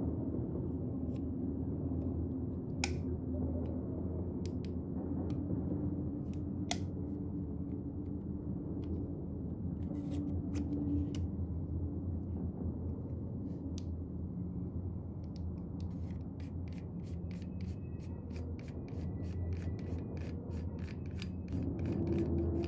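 Metal lightsaber hilt parts being handled, over a steady low hum. There are a few sharp clicks early on, then near the end a fast run of small clicks as a threaded section of the hilt is turned.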